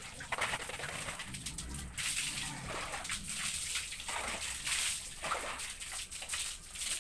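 Water scooped from a plastic bucket with a dipper and poured over a wet dog, splashing onto a tiled floor in a run of short, irregular splashes.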